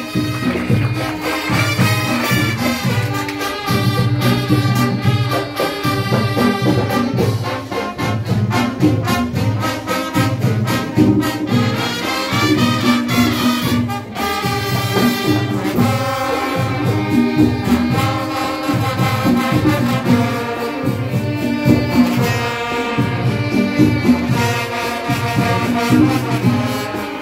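School marching band playing: brass melody over a steady, driving drum beat.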